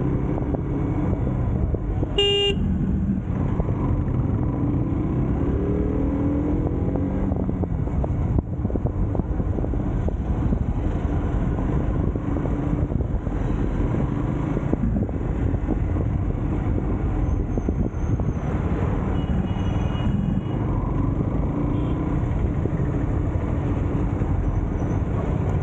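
Motorcycle riding through traffic, with a steady rumble of engine and road noise and the engine note rising about four to seven seconds in. A vehicle horn toots briefly about two seconds in, and a fainter horn sounds near twenty seconds.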